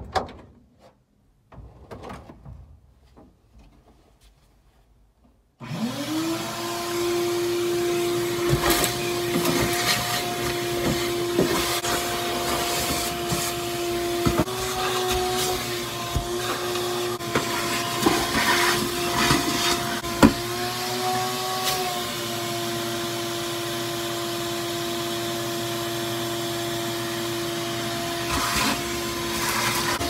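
A few faint knocks, then a vacuum cleaner switches on about five seconds in. Its motor whine climbs to a steady pitch and runs on while the wand is worked over the car's seats, with knocks and rattles of the nozzle and of debris being sucked up. The pitch steps up briefly twice.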